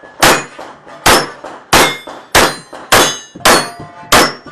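Pistol fired in a steady string: seven shots about two-thirds of a second apart, with steel targets ringing after the hits.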